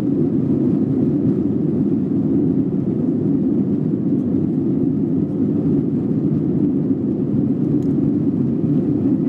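Steady low drone of an Airbus A321's engines and airflow, heard from inside the passenger cabin during the climb after take-off.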